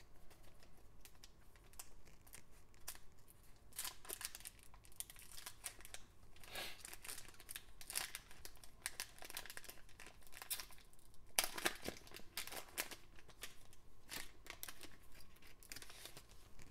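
Foil wrapper of a Panini Select basketball card pack crinkling and tearing as it is ripped open and peeled off by hand, in irregular crackles. The louder rips come about a quarter of the way in, around the middle, and about two-thirds of the way through.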